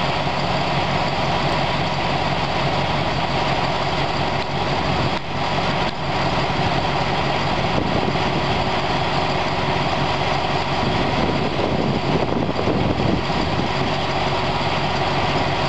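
Alsthom diesel-electric locomotive No. 4229 idling steadily while standing at the platform.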